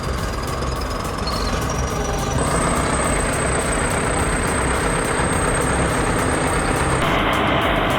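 Heavy vehicle engine running under load, a dense steady noise that gets louder about two and a half seconds in, where a faint high whine also joins.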